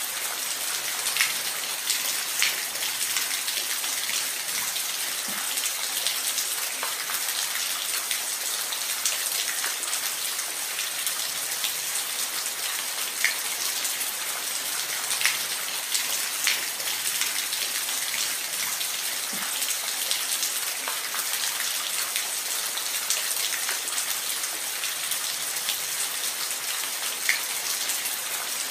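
Steady rain falling, a constant hiss with scattered individual drops ticking sharply on a surface.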